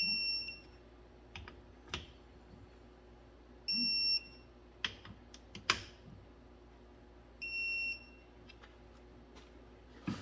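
Digital torque wrench beeping three times, each beep about half a second long and about four seconds apart, as each differential carrier bearing cap bolt reaches its set torque of 55 ft-lb. Short clicks and knocks of the wrench and socket come between the beeps.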